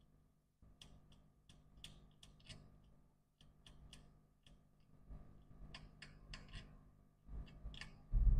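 Light irregular clicks and taps of a small hand tool working at a laptop logic board, several a second, over a faint steady hum, with a low thump or two near the end.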